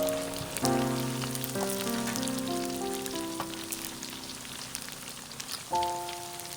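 Background music with slow, held notes, over a steady fine crackle of food frying in hot oil.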